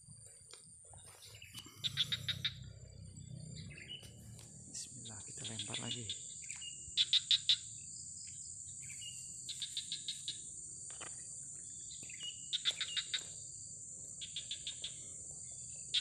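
Insects calling: a steady high-pitched drone, with short chirps of several rapid pulses repeating every two to three seconds.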